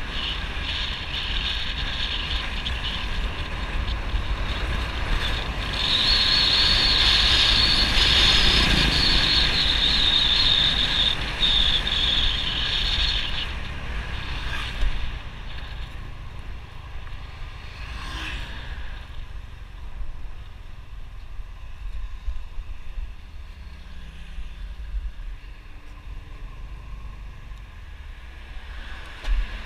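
Motorbike riding along with its engine running and wind rushing over the microphone, a steady rumble and hiss. It is louder for several seconds in the middle and grows quieter over the second half, with a couple of brief knocks.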